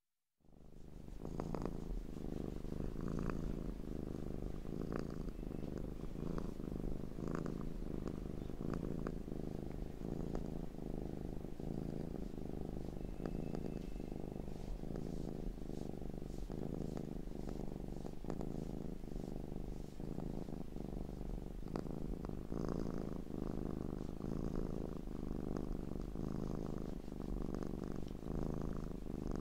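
Domestic cat purring steadily and continuously, a low fast-pulsing rumble that swells and eases in a slow rhythm with its breathing.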